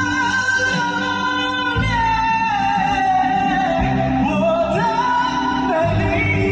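A singer holds a long high sung note over backing music, glides it downward about two seconds in, then sweeps back up near the end.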